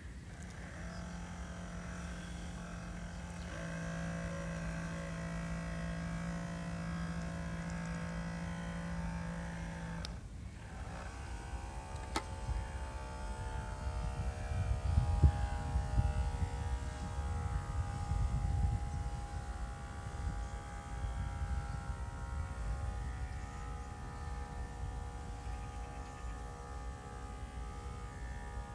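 RC model fishing boat's electric drive running with a steady whine, its pitch changing about a third of the way in as the throttle changes. A low rumbling noise underneath is loudest about halfway.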